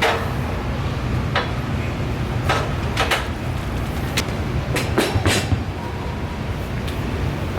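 About ten sharp knocks and clanks, irregularly spaced and bunched twice, over a steady low rumble.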